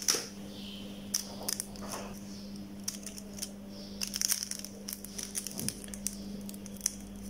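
Fingers handling a phone's pouch battery and pressing down yellow insulating tape over its connector jumper: faint scattered clicks and crinkles over a steady low hum.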